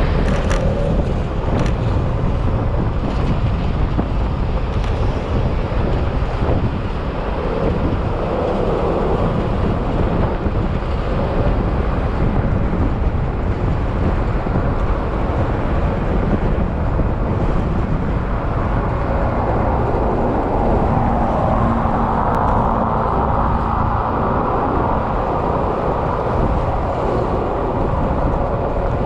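Yamaha XMAX maxi-scooter running steadily under way, its engine sound mixed with wind and road noise.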